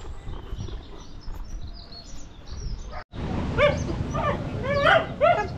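Bernese mountain dog whining in a series of short, bending, high-pitched whines in the second half, over low wind rumble on the microphone. Before that, birds chirp faintly.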